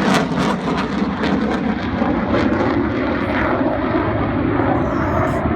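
Military fighter jet passing: loud jet engine noise with a crackle in the first second or so, its high hiss dulling over the following seconds as the jet moves away.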